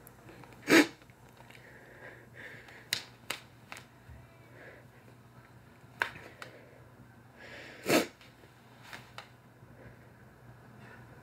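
A woman's two sharp, loud breaths through the nose and mouth, one about a second in and one near the end, with a few fainter clicks in between. They are the breathing of someone upset and close to crying.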